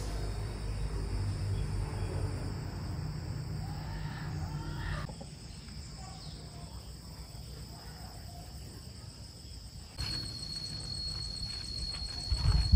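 Insects trilling in one steady high tone over outdoor background noise, with a low rumble in the first few seconds. The trill grows louder after a change about ten seconds in, and a brief louder knock comes near the end.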